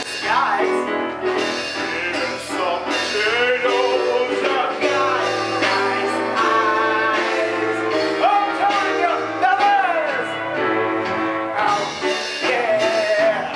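Musical-theatre song: singing over instrumental accompaniment, with sustained, wavering vocal lines.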